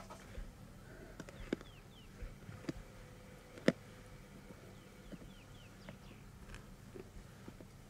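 Lions feeding on a buffalo carcass: irregular crunching and clicking as they gnaw and tear at bone and hide, the sharpest crack a little before halfway through. Short, falling bird chirps come in small groups in the background.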